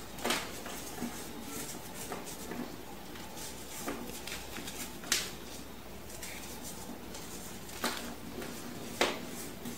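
Hands crushing and crumbling moulded blocks of compacted baking soda: a dry, gritty crunching, with four sharper cracks as pieces snap.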